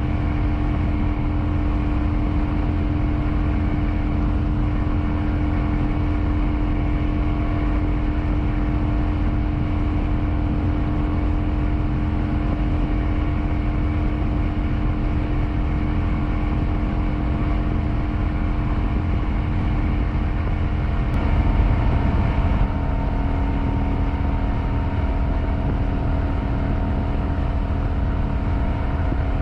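Kawasaki Vulcan 900's V-twin engine running steadily under the ride, buried in heavy wind and road rush. About two-thirds of the way through there is a brief louder swell, after which the engine note settles at a slightly different pitch.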